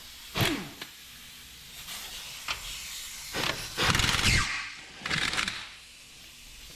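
Short bursts of metal tool noise while working on a car's wheel bearing and hub, some with squeals that fall in pitch. The loudest burst comes a little under halfway through.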